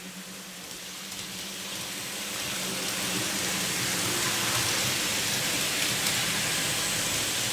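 N scale model freight train rolling past on the track: a steady hiss of small metal wheels running on the rails, growing louder over the first few seconds as the train nears, with a faint low hum underneath.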